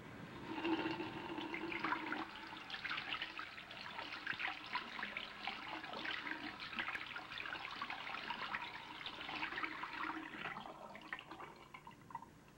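Water running from a tap into a sink, splashing steadily. It starts about half a second in and dies away near the end.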